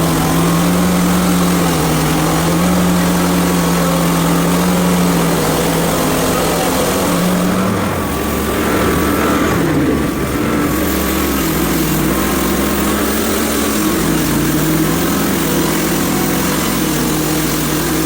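Hudson Homesteader HFE30 band sawmill running, its gas engine driving the band blade through a maple log to cut a flat. The engine note wavers a couple of times under the load.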